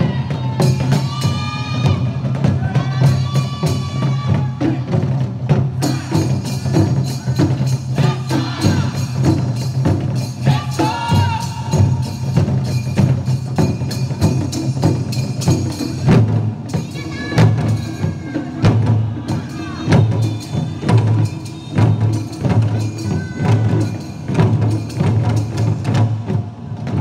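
Japanese taiko drum ensemble playing: dense rapid strikes over a continuous low rumble from the big drums, which about two-thirds of the way through breaks into separate heavy beats. High gliding tones sound over the drums at times.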